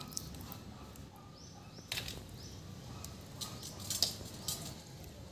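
Faint squelching of a hand rubbing thick chilli marinade onto a quail in a steel bowl, with a few light, sharp clicks as the bird is handled and set down on a steel plate.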